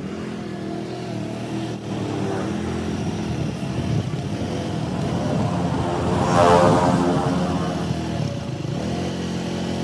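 Motor vehicle engines running, with one vehicle passing close and loudest about six and a half seconds in.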